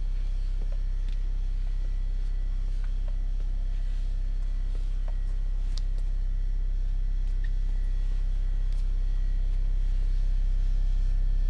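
A steady low drone with a few faint clicks over it, slowly growing louder.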